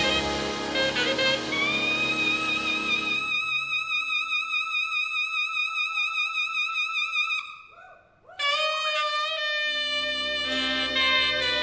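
Big band jazz playing live. The band drops out and a single horn holds a long note with wide vibrato on its own, breaks off briefly, then plays on as the full band comes back in near the end.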